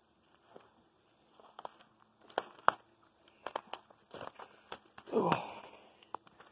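Footsteps crunching and crackling through dry fallen leaves and debris while climbing a leaf-covered slope of old stone stairs, in irregular sharp crunches that start about a second and a half in.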